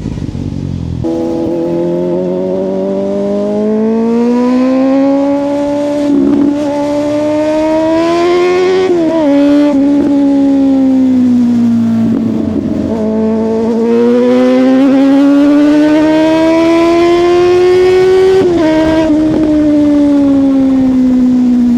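Suzuki GSX-S750's inline-four engine through a Yoshimura exhaust, under way. The revs climb, drop sharply about nine seconds in as a gear is changed, and sag off. They then climb again, with another sharp drop near the end before the engine eases off.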